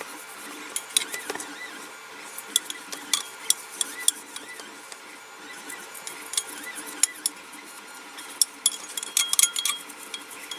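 Light clinks and scrapes as the small metal diecast body and a brush knock against their container while the paint is scrubbed off in nail varnish remover, with a quick flurry of clicks near the end.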